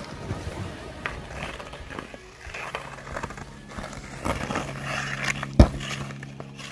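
Ice skates scraping and a hockey stick tapping a puck on outdoor rink ice, with a single sharp crack about five and a half seconds in. A steady low hum runs under the second half.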